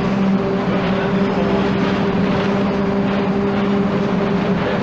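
Volksbus 17-230 EOD bus with Marcopolo Torino body, its diesel engine running at a steady speed: a constant low drone with road and body noise, pitch holding level throughout.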